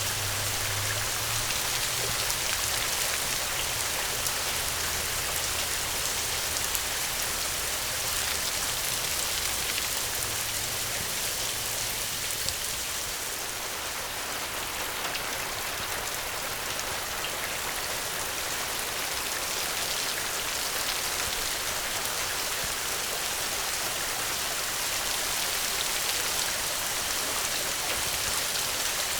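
Steady rain falling: a dense, even hiss with scattered ticks of individual drops.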